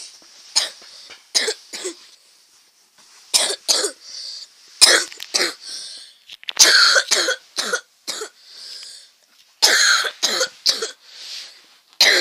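A person coughing in short, sudden bursts, often two or three in quick succession, close to the microphone, with softer breaths drawn in between.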